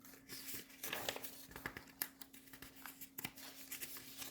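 Sheets of paper being handled and shuffled: a run of irregular crisp rustles and light taps.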